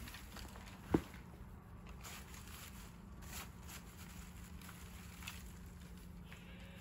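A goat rustling and crunching hay in a bucket, with soft crackles and small clicks and one sharp knock about a second in. A faint goat bleat comes near the end.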